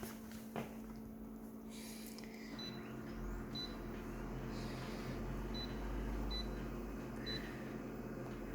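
Flatbed scanner making a pass: a low motor rumble from about two and a half seconds in to near the end, with a few short high beeps and a couple of clicks at the start.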